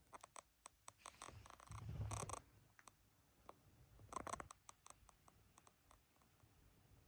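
Himalayan Persian cat making faint, irregular clicking sounds in its sleep, with two short, louder noisy stretches about two and four seconds in.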